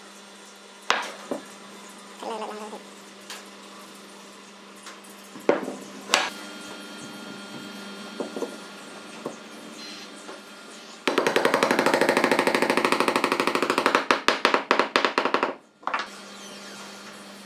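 Woodworking shop sounds: scattered knocks and taps of wood and tools. About two-thirds of the way through, a loud, fast rattling buzz runs for a few seconds, then stutters in short pulses and cuts off.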